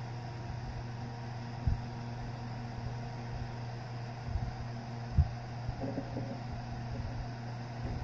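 A few small, sharp clicks of a steel pick tool prying at the locking tabs of a plastic oil pressure switch connector, the sharpest about five seconds in, over a steady low background hum.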